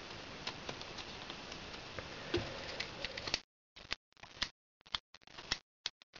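Light clicks and small handling sounds of scissors working a heat-shrink tube, stretching it wider. A faint steady hiss sits under them and drops out about three and a half seconds in, leaving only the scattered clicks.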